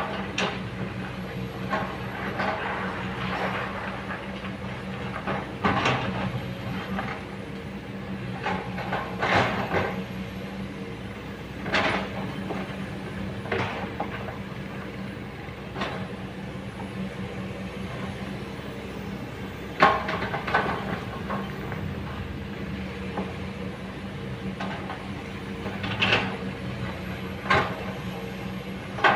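Kobelco hydraulic excavator's diesel engine running steadily while it digs, with irregular knocks and scrapes every few seconds as the bucket works the rocky bank.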